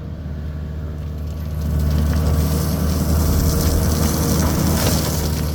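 A heavy vehicle engine running steadily, getting louder about two seconds in, with a rushing noise over it for a few seconds.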